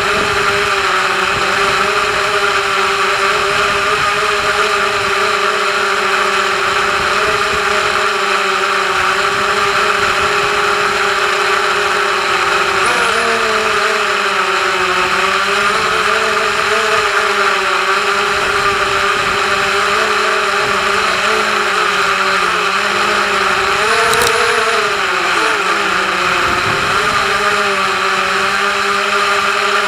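FPV quadcopter's electric motors and propellers whining steadily. The pitch wavers with throttle and rises briefly twice.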